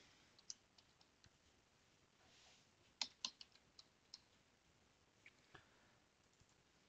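Near silence with faint, scattered computer keyboard clicks, including a quick run of several keystrokes about three seconds in.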